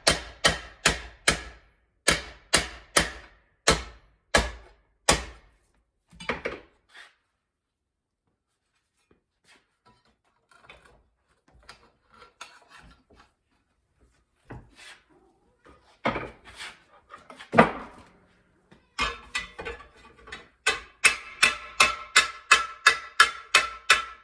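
Hammer blows on sheet metal, about three a second, in short runs separated by brief pauses, followed by quieter scraping, handling and the odd knock. Near the end, a fast, even run of strikes starts, with a steady ringing tone over it.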